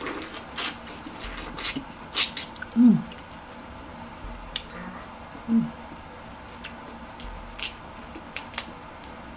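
Close-miked eating sounds: wet lip smacks, sucking and chewing on a butter-sauced prawn, thickest in the first three seconds and sparser after, with a couple of short low hums of enjoyment.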